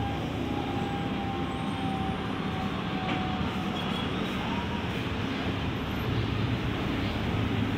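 Steady road traffic noise, a continuous even rumble, with a faint whine drifting in pitch.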